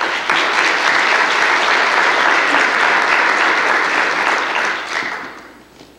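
Audience applauding: a dense clapping that swells in at once, holds steady for about four and a half seconds, then dies away.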